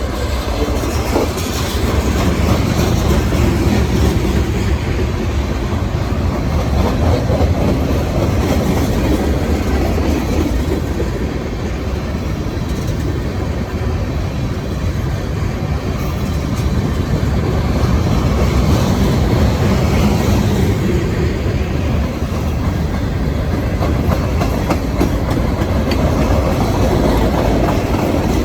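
Freight cars of a very long merchandise train rolling past, a steady loud noise of steel wheels on rail with some clatter over the joints.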